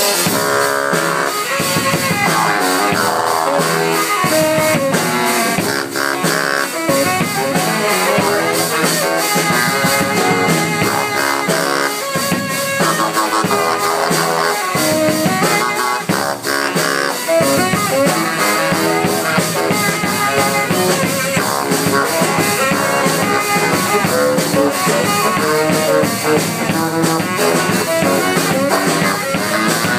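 Live saxophone-and-drums trio playing a loud, driving funk dance groove: two saxophones trading riffs over a steady drum-kit beat.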